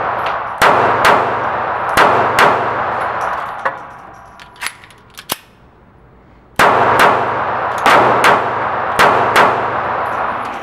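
Taurus PT738 TCP .380 ACP pocket pistol firing ten shots in quick pairs, each pair about half a second apart, every shot ringing in the reverberation of an indoor range. Four pairs come in two strings, with a pause of about four seconds between them in which a few light clicks are heard.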